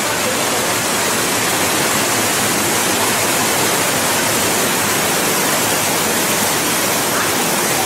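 Whitewater rushing over the steps of a low concrete weir in a river, a loud, steady rush.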